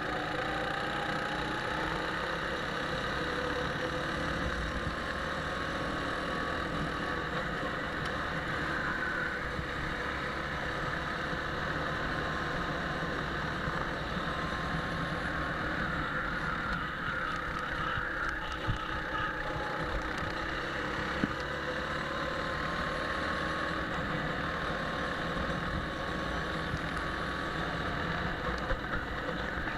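Go-kart engine running at speed, heard from a camera mounted on the kart, under a steady rushing noise. Its pitch climbs slowly over several seconds at a time as the kart accelerates, with a couple of small clicks near the middle.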